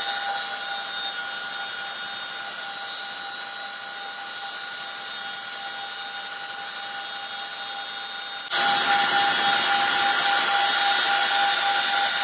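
CH-47 Chinook helicopter's twin turboshaft engines whining steadily over a rushing hiss; the sound jumps suddenly louder about eight and a half seconds in.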